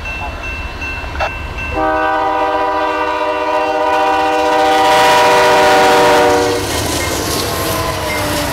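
Air horn of a BNSF GE Dash 9 (C44-9W) locomotive sounds one long blast, starting about two seconds in, lasting nearly five seconds and growing louder as the locomotive closes in. It cuts off as the lead units rush past, their engines and wheels making a loud rushing noise.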